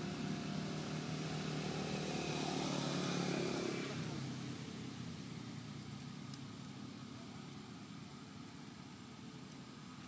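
A motor vehicle's engine passing by, growing louder to about three seconds in and then fading away.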